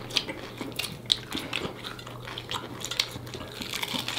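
Two people eating breaded fried chicken drumsticks: chewing and lip-smacking in a quick, irregular run of small wet clicks.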